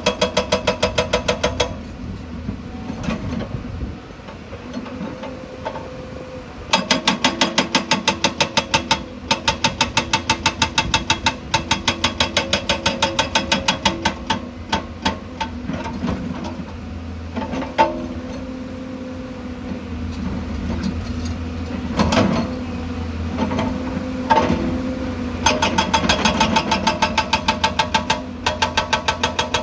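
Excavator diesel engine running steadily while a hydraulic breaker hammers rock in bursts of rapid, evenly spaced blows, about ten a second. The hammering stops for a few seconds at a time, leaving the engine with a few single knocks.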